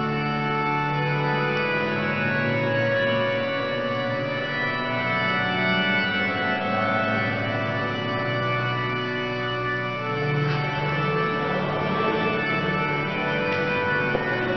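Organ music playing slow, sustained chords that change every few seconds.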